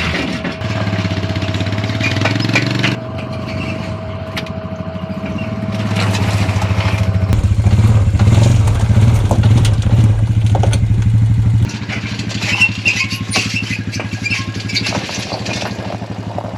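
A motor vehicle engine running steadily, with a low even hum that grows louder from about six seconds in and drops back sharply near twelve seconds, with scattered clicks over it.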